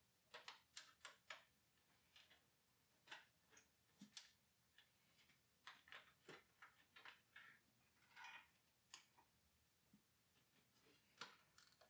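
Faint, irregular clicks and light taps of a small fan's cable and connector being handled and routed among the wiring inside an open Power Macintosh G3 case, with a short rustle about eight seconds in.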